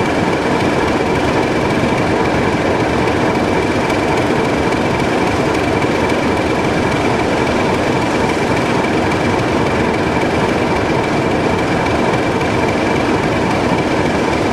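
Diesel locomotive engine running close by: a loud steady drone with a constant high whine over it.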